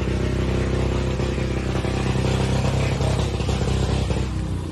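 An engine running steadily with an even low hum, which drops away a little before the end.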